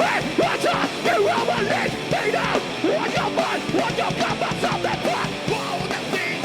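Live rock band playing a heavy song, with electric guitar to the fore.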